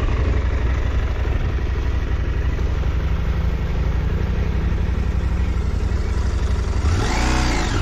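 Adventure motorcycle engine running steadily under way, with wind and tyre noise. About seven seconds in, the engine note falls and rises again briefly.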